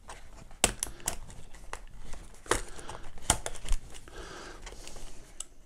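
Cardboard box and vape kit being handled as the device is worked out of its fitted box insert: a few scattered clicks and knocks over light rustling of the cardboard.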